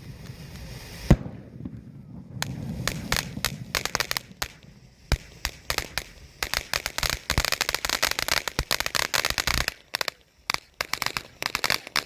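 Crackling firework fountain burning: dense runs of sharp crackles and pops, with one loud pop about a second in and the thickest crackling in the middle.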